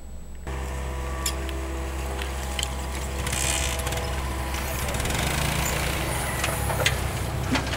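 Mini excavator's diesel engine running steadily, coming in about half a second in, with several sharp knocks and clanks and a brief hiss about three and a half seconds in.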